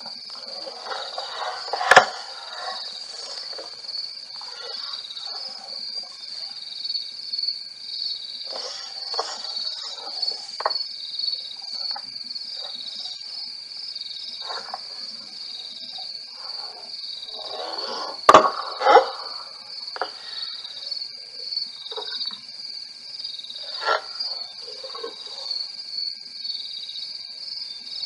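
Steady high trilling chorus of night insects, with scattered scuffing sounds and a few sharp knocks, the loudest about two seconds in and a pair just past the middle, as two African elephants spar tusk to tusk.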